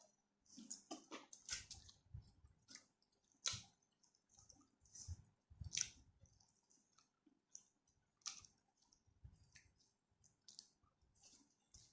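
Quiet, close-miked chewing and wet mouth sounds of someone eating rice with spicy stir-fried chicken: irregular soft smacks and clicks with low muffled bites.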